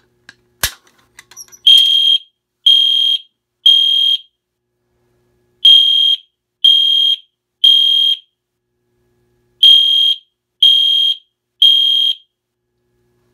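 The pull station's handle is pulled down with a sharp click, and about a second later a System Sensor Genesis fire alarm horn sounds in the temporal-three evacuation pattern: three short, high-pitched blasts, a pause, then the group again, three groups in all. This is the sign of the fire alarm panel in alarm, driving its horn circuit.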